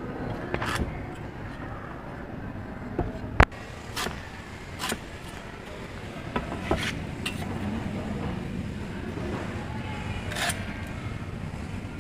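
A red-handled hand tool and a steel square scraping, clicking and knocking against lightweight aerated concrete (hebel) blocks while a cut is marked and made: scattered sharp clicks, with one loud knock about three and a half seconds in, over a steady background noise.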